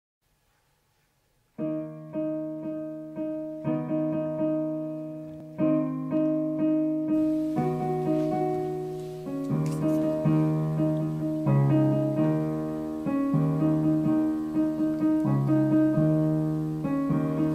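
Background piano music that starts about a second and a half in: a light tune of struck notes and chords, each dying away after it is played.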